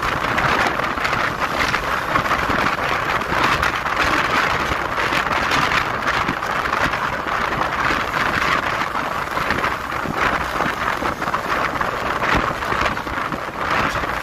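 Steady wind rush on the microphone of a moving motorcycle, mixed with road and vehicle noise.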